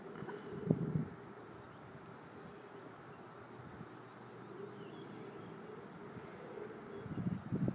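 A flying insect buzzing steadily with a slightly wavering pitch, with low rumbling gusts of wind on the microphone about a second in and again near the end.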